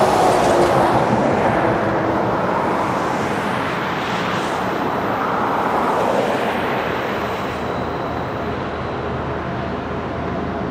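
Canadian National freight train running by: a steady mechanical rumble and rush of wheel and rail noise, loudest in the first second and easing slightly after.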